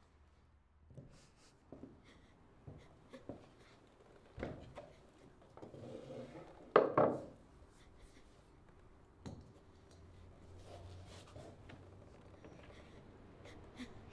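Scattered knocks and rubbing on wood as a person moves about and kneels at a wooden crate on a cellar floor, with one louder thump about seven seconds in.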